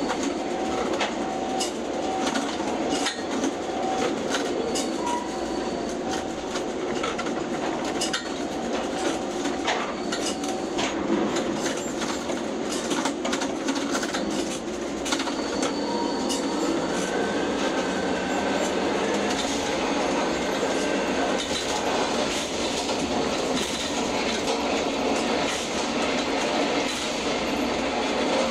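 Ship-to-shore container crane's trolley and hoist machinery running, heard from the operator's cab as the spreader travels out over the ship: a steady mechanical rumble with frequent clicks and clacks. A faint whine comes in about halfway through.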